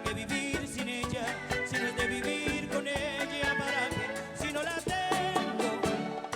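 A live bachata band playing, with steady percussion strokes under a wavering, bending melody line.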